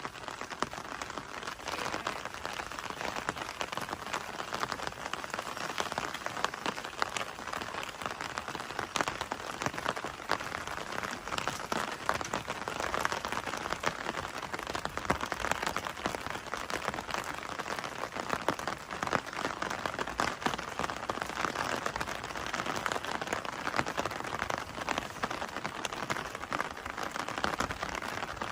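Steady rain falling, a dense hiss of countless small drop impacts pattering on surfaces.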